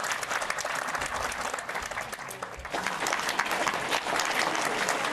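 Audience applauding: a dense run of many hand claps that dips briefly a little past halfway, then picks up again.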